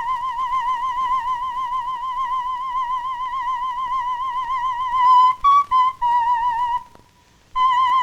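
A single high warbling tone, wavering quickly and evenly in pitch, held for about five seconds. It then breaks into a few short notes at slightly different pitches, with a brief drop-out near the end before it comes back.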